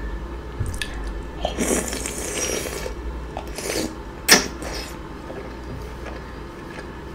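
Close-miked eating sounds from a meal of green-lip mussels in butter sauce: wet mouth noises and smacking with a few sharp clicks, the loudest a little over four seconds in, and a longer noisy stretch about two seconds in.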